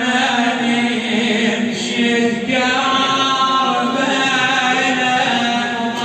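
A man chanting a traditional Arabic lament (nasheed) for Karbala, with long held notes.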